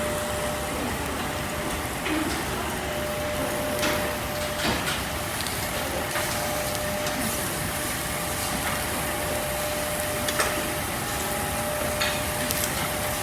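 Korean barbecue restaurant ambience: a steady hiss with a faint constant hum, broken by a few light clicks and knocks.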